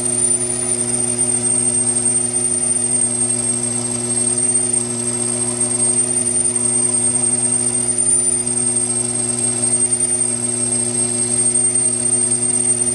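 Taig benchtop lathe running at steady speed, drilling into a spinning brass workpiece with a drill bit held in the tailstock's drill chuck. A constant hum comes with a thin high whine that wavers slightly.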